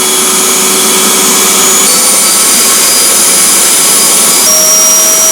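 Eureka Forbes Euroclean X-Force 1400-watt vacuum cleaner running loudly, its motor whine stepping up in pitch twice, about two seconds in and near the end, as the speed regulator is moved from low to medium to high.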